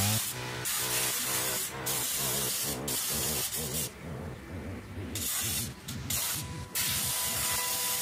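Aerosol chain-lube can spraying onto a motorcycle's rear chain and sprocket: a hiss given in several bursts with short breaks, and a longer pause about halfway.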